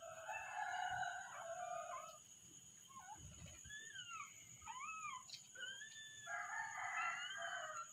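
Native rooster crowing twice, one long crow at the start and another near the end, with shorter rising and falling chirping calls in between.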